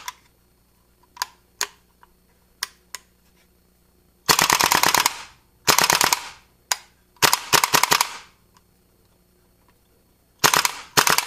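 WE AK gas blowback airsoft rifle dry-fired without BBs: a few single sharp clicks, then four short full-auto bursts of rapid bolt cycling with a hiss of gas. It is a function check of a newly installed RA Tech trigger set, and the rifle cycles on full auto.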